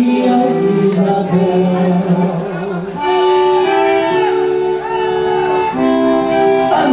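Accordion-led quadrilha junina music playing without singing, held chords changing every second or so.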